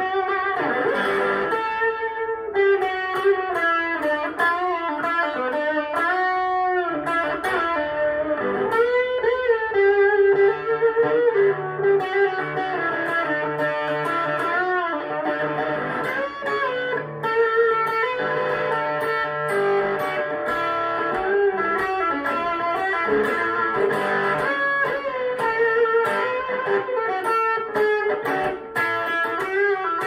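Electric guitar playing an instrumental melodic passage of single notes and chords, with some notes bent in pitch.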